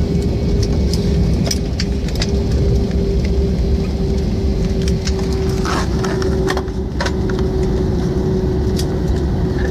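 Airliner cabin noise during the rollout after landing: a steady low rumble of the engines and the wheels on the tarmac, with a constant hum. Scattered clicks and rattles from the cabin.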